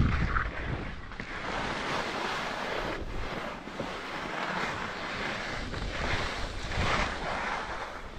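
Skis scraping and hissing over firm, tracked snow, the sound swelling and easing every second or two, with wind rushing over the helmet-mounted microphone.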